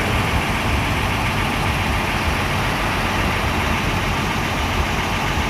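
Intercity bus's diesel engine idling with a steady low rumble.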